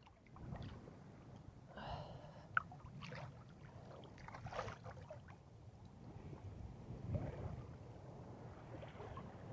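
Winter-cold sea water sloshing and splashing around a man's body as he wades in, with a few short, sharp breaths at the cold. A single sharp tap about two and a half seconds in.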